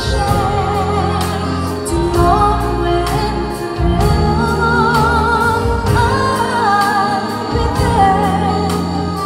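A woman singing a ballad live into a microphone, holding long notes with vibrato, over a live band. The sound comes through the venue's sound system and is heard from among the audience.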